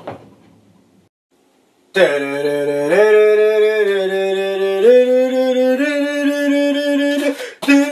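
After about a second of near silence, a man's voice sings one sustained note starting low, stepping up in pitch three times and breaking off briefly near the end.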